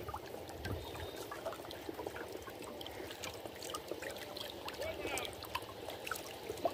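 Water trickling and dripping off a hook longline as it is hauled by hand out of the river into a wooden boat, with faint scattered clicks.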